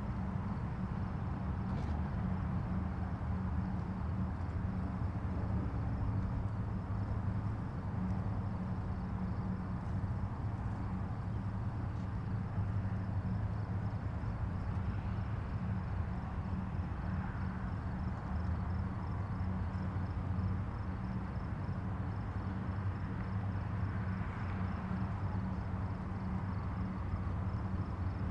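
Steady road noise from a vehicle driving on a highway: a continuous low rumble of tyres and engine, with a few gentle swells. A faint, rapid high-pitched pulsing runs underneath.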